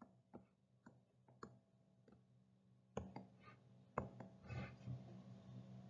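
Near silence: a faint low room hum with a scattering of faint short clicks, a few of them a little louder about three and four seconds in.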